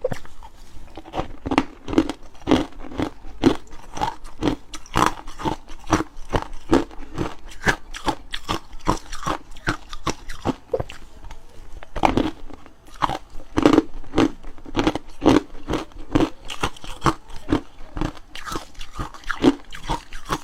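Ice cubes being bitten and chewed close to the microphone: a steady run of sharp, irregular crunches, several a second.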